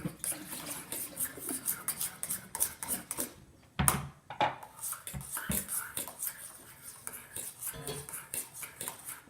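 A utensil stirring and scraping thick body-wash slime in a bowl, in quick clicking strokes. It pauses briefly, then gives a louder knock against the bowl about four seconds in.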